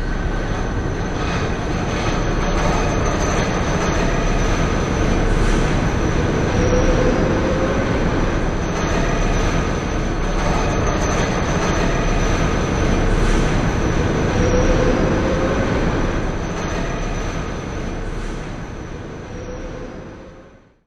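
Train wheels rolling on the rails: a continuous rumble with a thin steady whine over it and a rising whine twice. It fades over the last few seconds and then cuts off.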